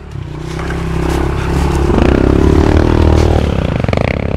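Pit bike's small single-cylinder four-stroke engine revving hard under load as it pushes through swamp mud, building over the first couple of seconds and then held high, with some clattering.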